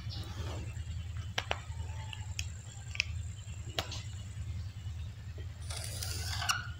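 Marker pen on a whiteboard: a few sharp taps and short squeaky strokes, then a longer scratchy stroke near the end, over a steady low hum.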